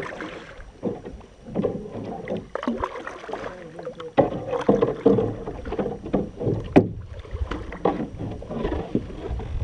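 Canoe paddles dipping and pulling through river water close by, with uneven splashing and water washing along the hull. A sharp knock comes about seven seconds in.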